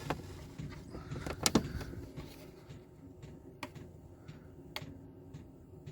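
Diesel air heater running with a steady low hum while its dosing fuel pump ticks about twice a second. Two louder clicks in the first two seconds as the controller's buttons are pressed.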